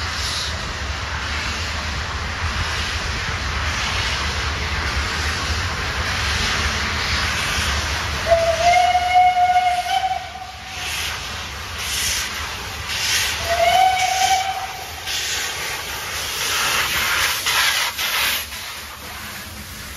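141 R steam locomotive running with a steady steam hiss and sounding its steam whistle twice: a long blast of about two and a half seconds, then a shorter one. As it draws alongside near the end, louder gusts of steam and exhaust come through.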